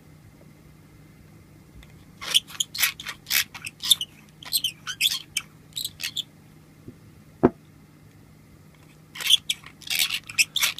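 Castleford pipe reamer turning in a tobacco pipe bowl, its blade scraping out carbon cake in two runs of short, crisp crunching strokes, with a single sharp click in between.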